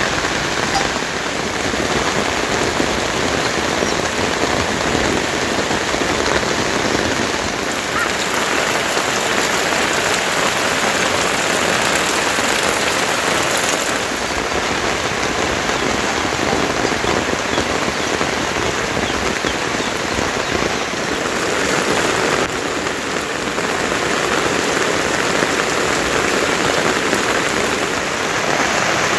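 Heavy rain falling steadily and densely, pattering on surfaces.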